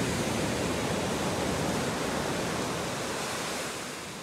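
Ocean surf breaking and washing up a sand beach: a steady rushing noise that eases off slightly near the end.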